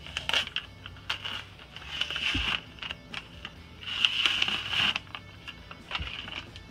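Paper and cardboard sock packaging rustling and crinkling as it is pulled off and handled, in about five short bursts with a few small clicks.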